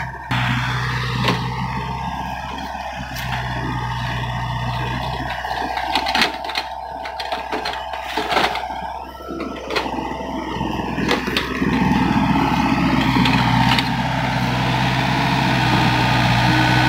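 Doosan compact excavator's diesel engine running under hydraulic load while digging wet mud, with a steady hum and whine and scattered clanks and knocks from the bucket and arm. The engine grows louder about twelve seconds in.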